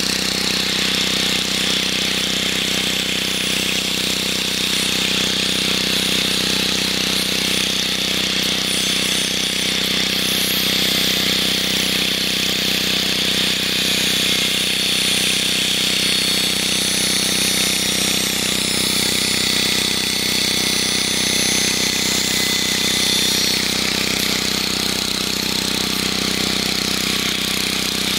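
Electric angle grinder with a grinding disc running steadily against a steel rail head, grinding away the burr (the extra overhanging edge) on the rail: a continuous high whine of the disc on the steel over the low hum of the motor.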